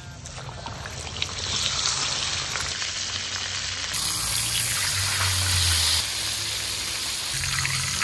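Whole flour-dredged parrotfish deep-frying in hot oil in a wok: a steady hissing sizzle of bubbling oil, growing louder about a second and a half in.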